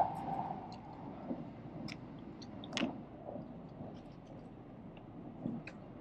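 Cabin noise of a Shinkansen bullet train running at speed: a low, even rumble with scattered light ticks, the sharpest about three seconds in.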